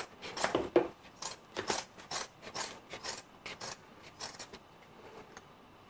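Scissors cutting through thick felt: a run of crisp snips, about two a second, that stops about four and a half seconds in.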